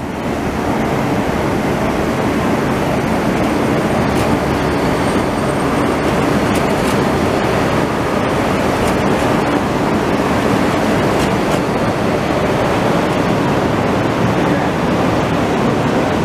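Porto Metro Eurotram (Bombardier Flexity Outlook light-rail tram) running past close by on a grassed track, heard as a steady rushing noise.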